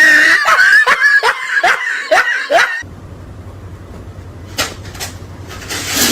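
Laughter in quick repeated bursts, about three a second, breaking off sharply near the middle. After that a quieter stretch follows, with a low steady hum and a couple of brief knocks.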